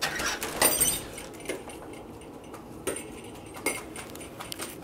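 Small metal jingle bells on a strap hanging from a door handle, rung by a puppy nosing them: the signal that he wants to go out to pee. A loud jangle in the first second, then a few lighter jingles near the end.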